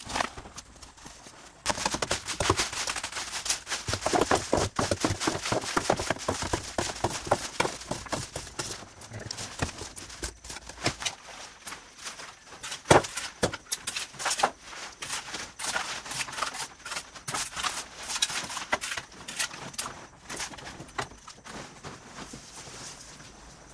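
Rapid, clattering knocks and scrapes starting about two seconds in and going on densely, with one sharp, loud knock about thirteen seconds in.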